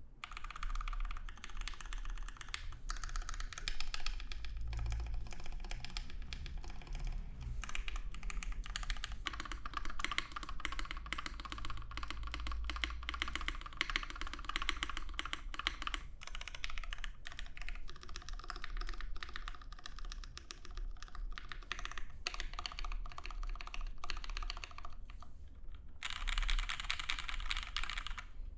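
Continuous typing on a Mekanisk Tind 60% mechanical keyboard with linear Cherry MX Hyperglide Black switches, a brass plate and GMK keycaps: a dense run of keystroke clacks, with short pauses about 16, 22 and 26 seconds in.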